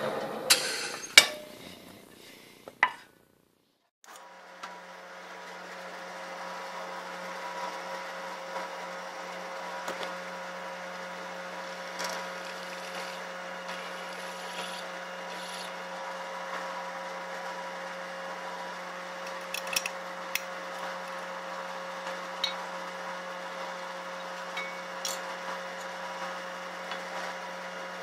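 A few sharp knocks of handling, then, after a break, a drill press running steadily with its motor hum while the bit rasps into the aluminium platen spacer plate, with scattered small ticks.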